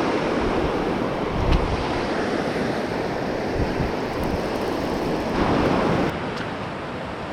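Gulf of Mexico surf washing onto the beach, with wind buffeting the microphone; one wave surges louder about five and a half seconds in, then eases off.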